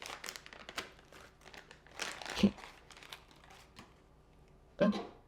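Filter packaging crinkling and crackling as new replacement filters are unwrapped, with one louder, sharper crackle about two and a half seconds in.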